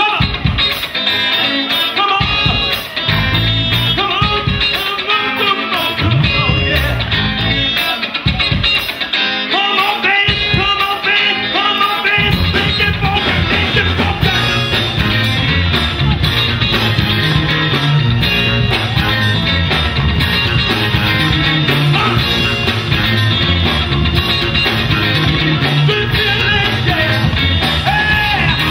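Music with a singing voice over a steady beat; a heavier bass comes in about twelve seconds in.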